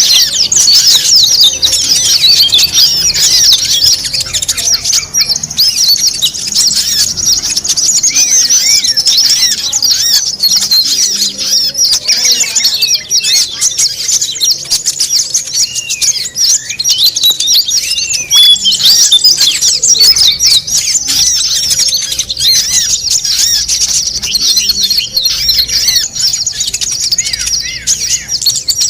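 Dense, continuous chorus of many small songbirds chirping and twittering over one another: a mixed-species bird-lure recording of quick, high chirps and short whistled glides.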